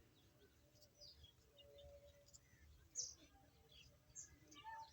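Near silence, with faint, scattered bird chirps in the background; the clearest comes about three seconds in.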